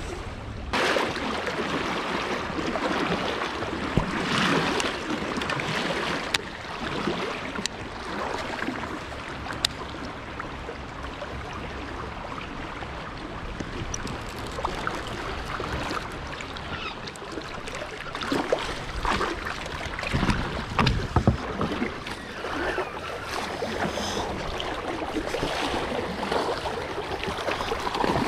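Shallow river water rushing and splashing around a wading angler's legs and the kayak he tows through the current, with louder splashing near the end.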